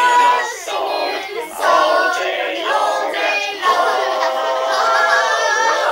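Several young girls singing together without accompaniment, holding long notes in a loose chorus.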